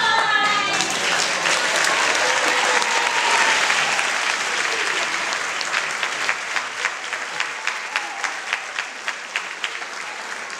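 Audience applauding: a dense wash of clapping that thins out after about five seconds into scattered individual claps and slowly fades.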